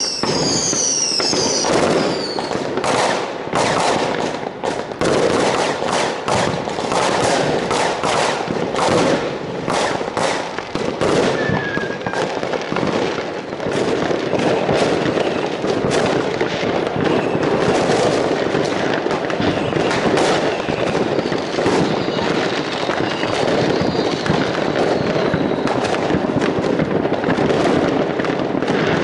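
Many consumer fireworks going off at once: a continuous crackle packed with frequent sharp bangs, and a high whistle falling in pitch near the start.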